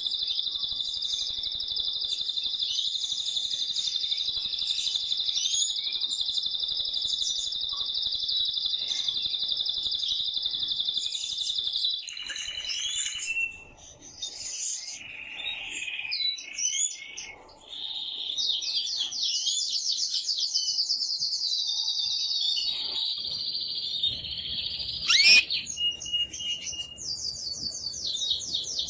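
Male canary singing: a long, unbroken rolling trill for about twelve seconds, then a run of varied short phrases and fast, rapidly pulsed trills. A single sharp, loud note cuts through about 25 seconds in.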